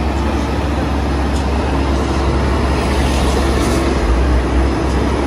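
Heavy diesel dump truck engine running under load, a steady deep rumble that swells briefly about four seconds in.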